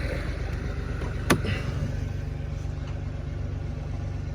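An engine idling steadily with a low, even hum, and a single sharp click about a second in.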